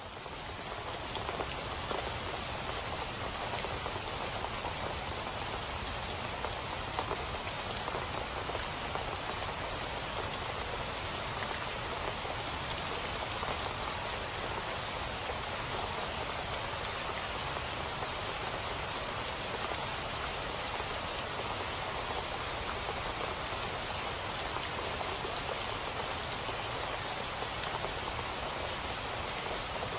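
Heavy rain falling steadily and splashing onto a puddled flat surface, a dense patter that fades in over the first second or two.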